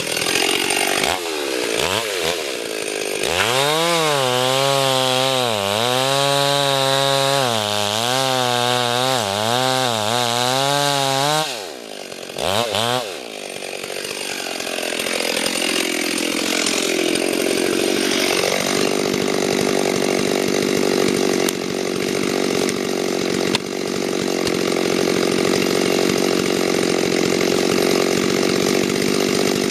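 Chainsaw engine at work felling a big poplar. It gives a few short revs, then runs at high revs with the pitch wavering up and down for about eight seconds. After a brief drop about twelve seconds in, it runs steadily at full throttle for the rest.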